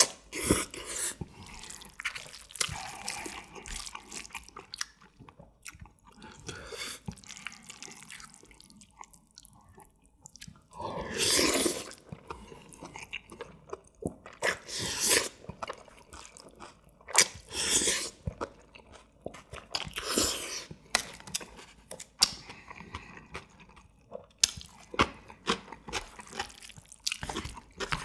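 Close-up eating sounds of a man slurping up jjajangmyeon noodles in black bean sauce and chewing them wetly. Several long slurps stand out, the loudest about eleven seconds in.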